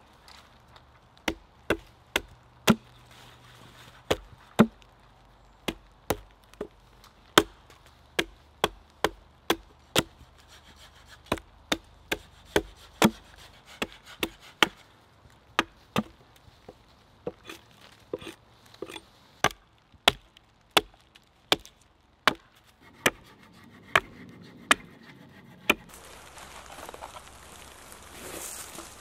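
Small axe chopping a point onto a wooden stake resting on a stump: a long run of sharp wooden knocks, one or two a second, as chips split off. Near the end the chopping stops and a knife shaves the wood with a quieter scraping hiss.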